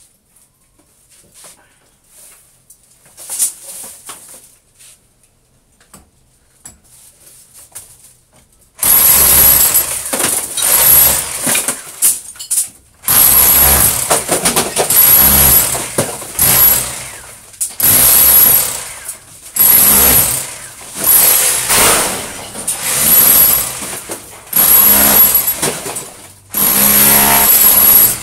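A loud motorised power tool with a high whine starts suddenly about nine seconds in and runs in repeated bursts of one to four seconds, dropping briefly between them. Before that there are only a few faint knocks.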